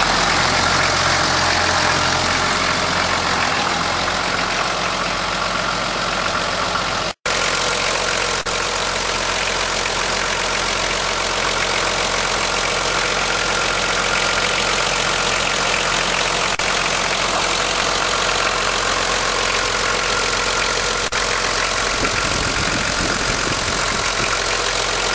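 Toyota HJ45 Land Cruiser's inline-six diesel engine idling steadily, heard close at the open engine bay. The sound cuts out for a split second about seven seconds in, then carries on unchanged.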